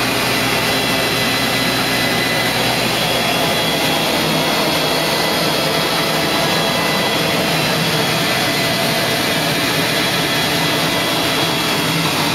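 Rotovac 360i rotary wand on carpet, with the hot-water extraction machine's vacuum suction running: a steady, loud rushing roar with a thin high whine, unchanging throughout as the wand extracts hot water and soil from the pile.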